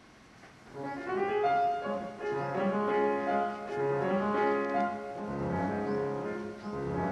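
Background instrumental music, sustained melodic notes in a classical style, starting about a second in.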